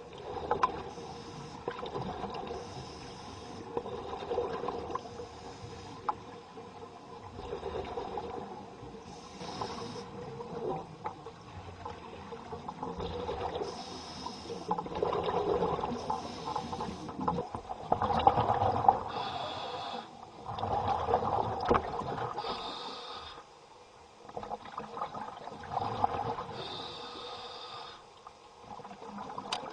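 Scuba divers breathing underwater through their regulators: short hisses of air come every few seconds amid uneven swells of bubbling and rumbling.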